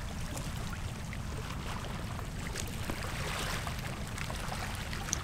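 Fast-flowing river current, a steady rushing wash over a low rumble.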